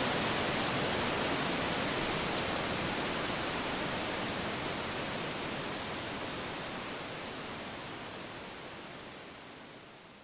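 Waterfall rushing as a steady wash of noise, fading out slowly toward the end. A faint high chirp about two seconds in.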